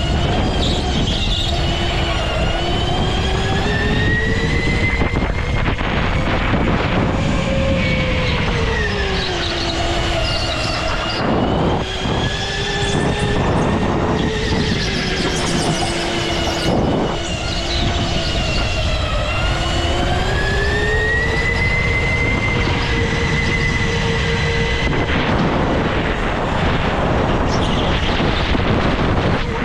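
Go-kart running at speed, heard from the driver's seat: its motor's whine rises and falls in pitch as the kart speeds up and slows, over a steady rushing noise.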